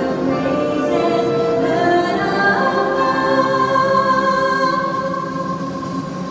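Music with singing: long held vocal notes that glide from one pitch to the next.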